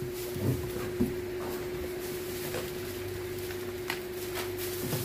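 A cardboard box and paper manuals in a plastic bag being handled, with a few soft knocks and rustles, over a steady electrical hum.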